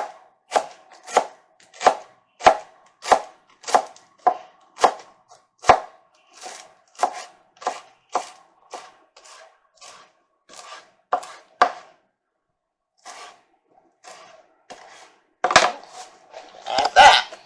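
Kitchen knife chopping fresh coriander on a cutting board: sharp, evenly spaced chops about every 0.6 s, turning lighter and less regular after about six seconds. After a short pause there is a louder flurry of chops near the end.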